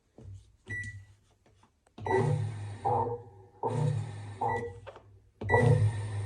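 Background music that starts about two seconds in, after a few faint clicks, with a phrase repeating about every second and a half.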